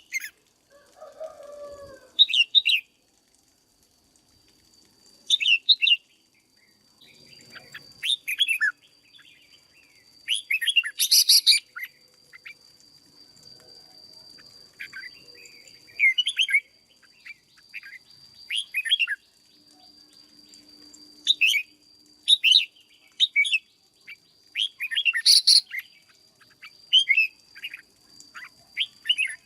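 Red-whiskered bulbul singing: short, bright, chirpy phrases repeated every second or few, with a faint steady high tone behind them through most of the stretch.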